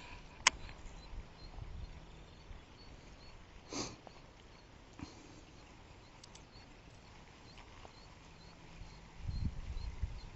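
Faint outdoor background with a single sharp click about half a second in and a short sniff near four seconds. Near the end, wind starts buffeting the microphone with a low rumble.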